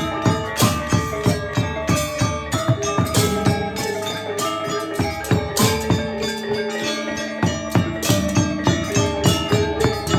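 Balinese gamelan playing: metal-keyed mallet instruments struck in a quick, steady beat of about three to four strokes a second, their tones ringing over a low sustained note.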